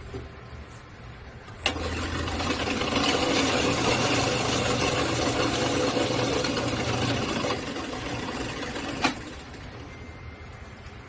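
Benchtop drill press switched on with a click, its motor running and the bit boring a hole in the wooden peg piece for about seven seconds, louder for a few seconds in the middle. It is switched off with another click.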